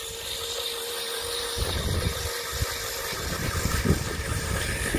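Traxxas 4-Tec RC cars running on concrete: an electric motor whine held at a steady pitch over the noise of rubber tyres on the slab.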